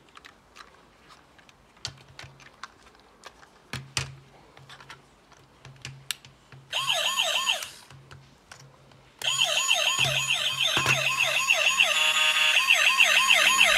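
Plastic clicks and knocks as a battery-powered bump-and-go toy police car is handled and switched on. Then its electronic siren sounds: a fast, repeating up-and-down wail that plays for about a second, stops, and comes back loud about two-thirds of the way in.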